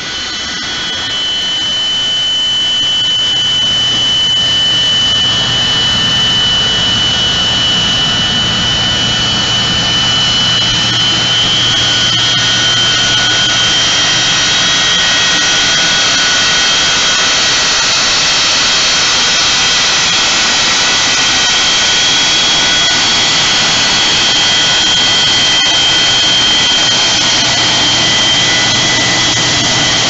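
Boeing 727's three Pratt & Whitney JT8D turbofans running as the jet taxis in close by. A loud jet rush with a shrill whine of several steady high tones builds over the first few seconds, then holds.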